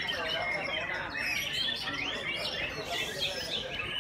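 Many caged white-rumped shamas (murai batu) singing at once in competition: a dense, unbroken chorus of overlapping whistled phrases and chirps that rise and fall.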